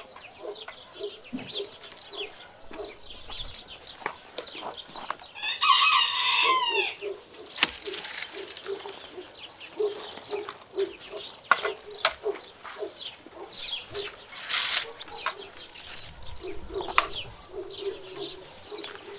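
A rooster crows once, about six seconds in, the loudest sound, ending on a falling note. Around it, small birds chirp and now and then a sharp snap comes from loppers cutting peach branches.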